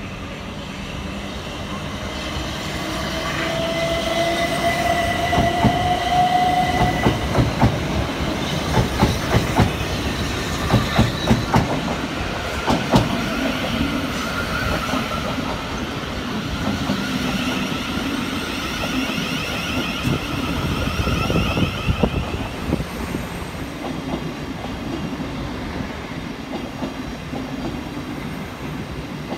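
Thameslink Class 700 electric multiple unit running along the platform close by, its wheels clicking over rail joints in a quick run of beats through the middle, over a steady rumble and high electric whining tones, one gliding upward early on.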